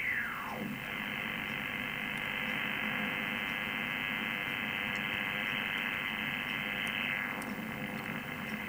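Loud buzzing interference noise on the 60 m (5 MHz) amateur band, heard through an ICOM IC-7300 receiver in USB as the dial is tuned up through the band of noise. The noise is steady and rough and fills the receiver's narrow audio range. In the first second a whistle slides steeply down in pitch. The noise is local interference at about 20 dB over S9.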